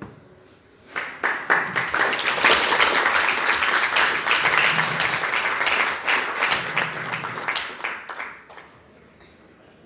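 Audience applauding: a room of people clapping that breaks out about a second in, holds steady for several seconds and dies away near the end.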